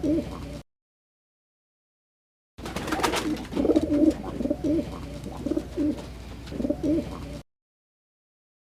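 Pigeon cooing: a series of low, repeated coos that stops abruptly just after the start, resumes about two and a half seconds in for roughly five seconds, then cuts off again into silence.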